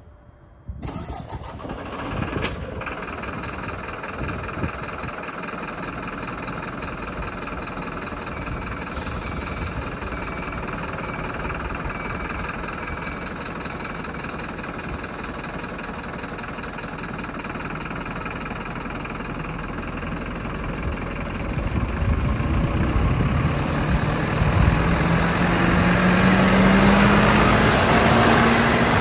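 Diesel engine of an orange DVB crane truck (badged 1322) running steadily, its engine speed climbing over the last several seconds.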